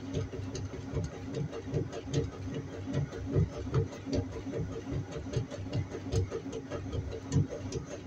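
Washing machine running: a steady hum under irregular low thumps and scattered clicks.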